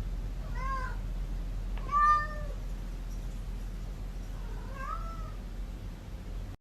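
A cat meowing three times in short calls, each rising and then falling in pitch; the second call, about two seconds in, is the loudest.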